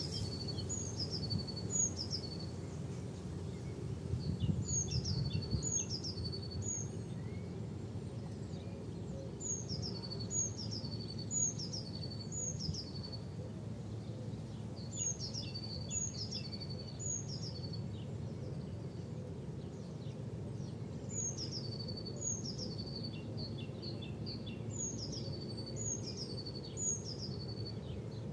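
A small songbird singing short phrases of two to four high notes, each sliding sharply down, repeated every few seconds, over a steady low background rumble.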